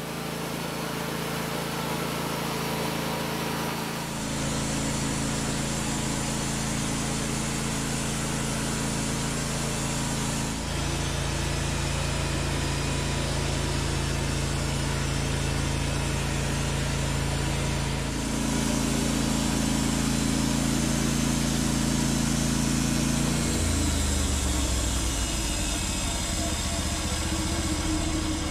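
Norwood LumberMate LM29 portable bandsaw mill running, its engine driving the band blade through a log as it saws a beam. It is a steady engine note that shifts in pitch and loudness several times.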